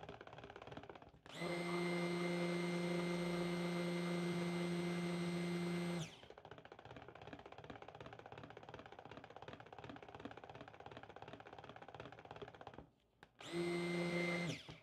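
Braun stick blender motor whirring in pulses while blending cold-process soap batter: one run of about five seconds that starts a second in, then a short burst near the end. Between the pulses there are only faint sounds.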